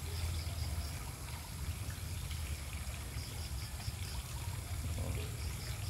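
Water trickling steadily into the pond over a low steady rumble, with a high chirp repeated in quick runs of four or five notes, three times.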